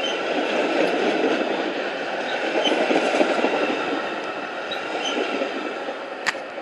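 Metra commuter train's stainless-steel bilevel cars rolling past close by as the train pulls out of the station: a steady rumble of wheels on rail with a faint high whine over it, swelling and then easing as the last car goes by. A single sharp click near the end.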